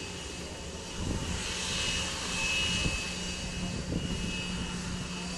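Twin rear-mounted turbofan engines of an Embraer Legacy business jet running at low taxi power: a steady high whine over a low hum and jet rush, swelling a little about a second in.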